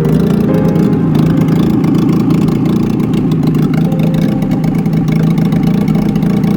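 VAZ 2107's engine running steadily.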